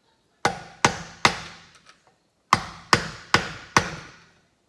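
Hammer striking a tool on metal, seven sharp blows in two runs of three and four, each ringing briefly: flattening the bent-over lock tab of the spacer on a 1975 Suzuki GT500's crankshaft nut so the nut can be undone.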